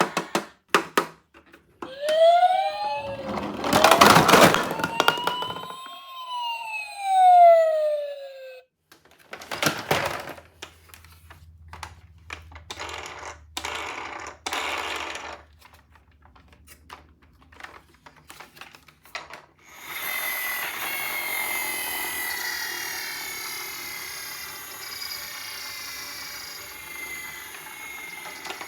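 Toy ambulance minicars' electronic sirens wailing in rising and falling sweeps, with a loud plastic clatter in the middle of them. Clicks and rattles of the toys being handled follow, then, about two-thirds in, a noisier electronic siren sound with repeated falling pitches.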